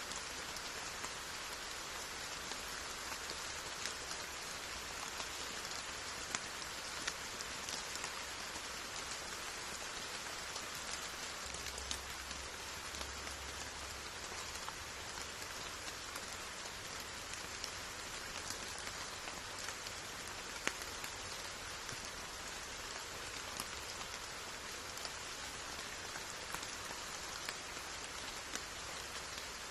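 Steady rain falling, an even hiss with occasional sharper single drop ticks.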